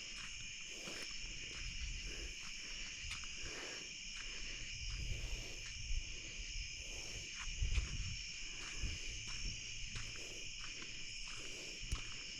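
Steady night chorus of crickets and katydids, with soft footsteps rustling through leaf litter about once a second.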